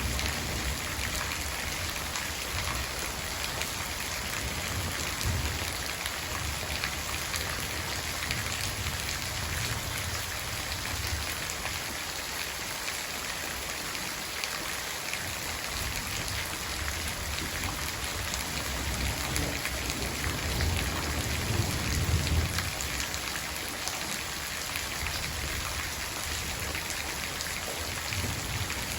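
Steady rain falling and pattering on surfaces. A low rumble swells and fades twice, the louder one about three-quarters of the way through.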